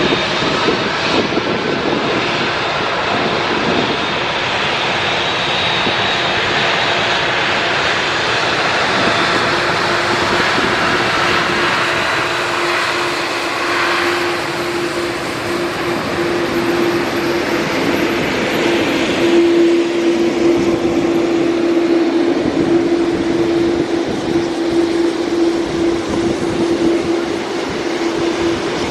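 A jet airliner's engines running loud and steady, with a steady droning tone that comes up about halfway through and is strongest near two-thirds in. Strong wind rumbling on the microphone underneath.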